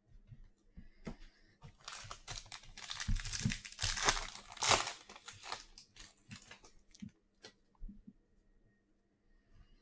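A trading-card pack wrapper being torn open and crinkled by hand, a dense crackle that peaks about four to five seconds in, followed by a few light clicks and rustles as the cards come out.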